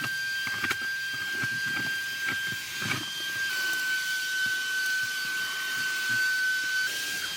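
Small vacuum cleaner running with a steady high whine and hiss, the whine dipping slightly in pitch about halfway through and coming back up near the end, with scattered light knocks as it works over surfaces.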